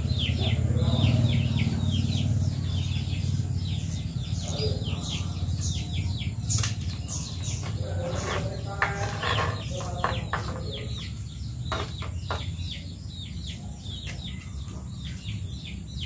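Paper masking tape being pulled off the roll and wound around an aluminium pipe, in a long run of quick crackling rasps. A low hum fades out over the first few seconds.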